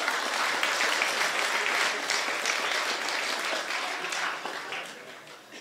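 Audience applauding a stand-up comedian's punchline, a dense patter of many hands clapping that tails off near the end.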